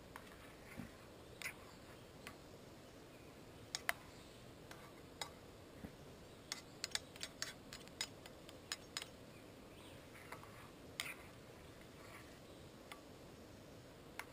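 A metal spoon clinking and scraping against a metal camping pot while stirring: scattered sharp ticks, most of them in a quick run about halfway through.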